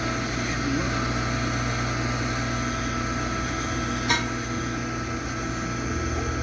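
Zenith R472 Circle of Sound radio giving out a steady hiss with a low hum and several thin steady whistle tones, with no programme audible. A single click comes about four seconds in.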